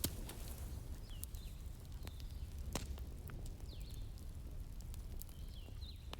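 Wood fire in a fireplace crackling, with scattered sharp pops (a loud one about three seconds in) over a steady low rumble. Short, high chirping glides recur every second or so.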